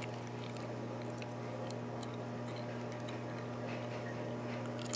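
Faint, scattered clicks of a lock pick working the pins inside a Mul-T-Lock dimple cylinder, with a slightly louder click near the end, over a steady low hum.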